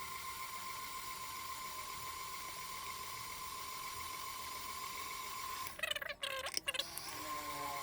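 Electric mixer motor running steadily with a high whine while it works bread dough. A brief rattle of clicks about six seconds in.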